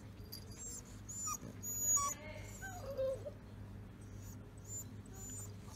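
45-day-old Rottweiler puppies whimpering and whining, a few short wavering whines between about one and three seconds in, over a steady low hum.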